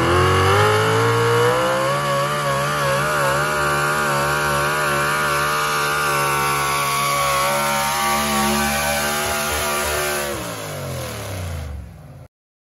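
Pickup truck engine held at full throttle while pulling a weight sled. Its pitch climbs over the first second or so, then wavers up and down as the truck works against the sled. The pitch falls away over the last couple of seconds as the pull ends, and the sound cuts off suddenly near the end.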